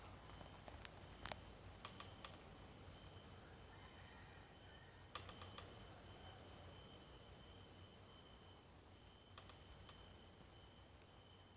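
Night insects chirring: a faint, steady high-pitched trill that does not stop, with a second, lower trill coming and going and a few faint clicks.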